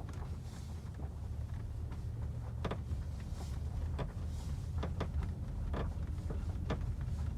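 Steady low road and engine noise inside a moving Skoda Kodiaq's cabin. From about two and a half seconds in, a series of short creaks from the rear of the cabin stands out: the unexplained squeak that the owner is hunting for, which a viewer suggested could be the tailgate's rubber seal.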